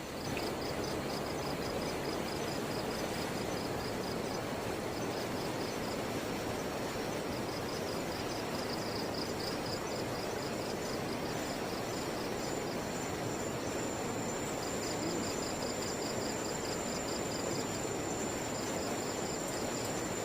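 Evening crickets and other insects chirping in rapid pulsed trains that come and go, over a steady high insect whine that grows stronger in the second half, with a steady rushing noise underneath.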